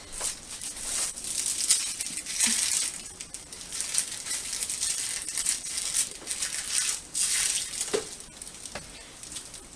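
Irregular rustling and crinkling of packaging being handled close by, in many short flurries with a few light knocks.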